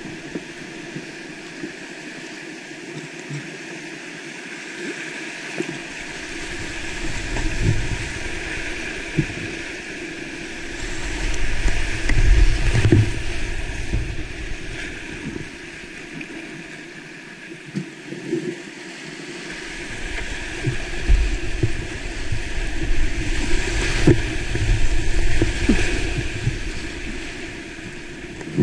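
Whitewater rushing around a kayak running a creek rapid, with splashes and paddle strokes close to a camera on the paddler. The water noise swells into low, buffeting rumbles twice, about a quarter of the way in and again after the middle.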